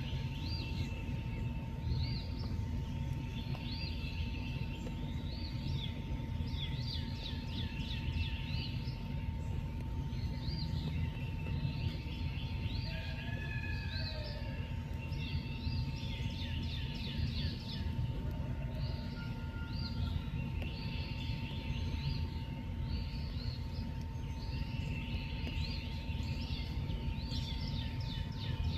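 Outdoor nature ambience: many short, high chirping calls from several callers overlapping throughout, over a steady low rumble and a constant thin tone.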